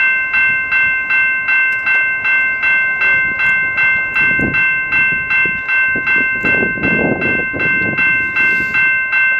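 Railroad crossing warning bell ringing steadily at about three strokes a second, with the low rumble of an approaching diesel commuter train swelling in the second half.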